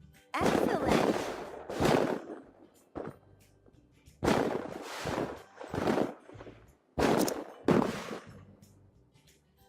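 A series of about seven loud, sudden bangs at uneven intervals, each fading out over a fraction of a second.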